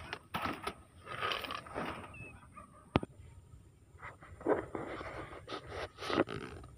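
Wire-mesh cage rat traps being handled amid dry rice straw and grass: irregular rustling and scuffing, with one sharp click about three seconds in.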